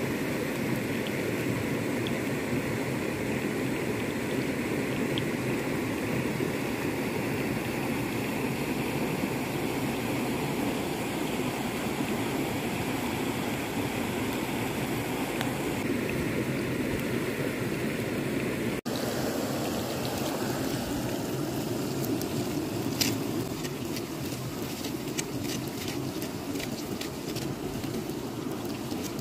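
Steady rushing of a small rocky creek. After a brief cut partway through, sharp crackles and clicks come from wood-fire embers as they are stirred with a stick, with the creek still running behind them.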